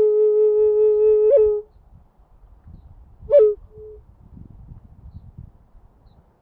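A flute holding one long low note that ends with a quick upward flick about a second and a half in; after a pause, a short note leaps up and drops back down about three seconds in.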